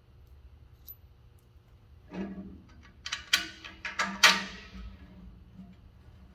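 Heavy steel wood-stove door, hung on a standard bolt in place of its hinge pin, being swung and clanked against its plate-steel frame. A knock about two seconds in, a few sharp metal clicks about a second later, then the loudest clang just after four seconds, ringing briefly as it dies away.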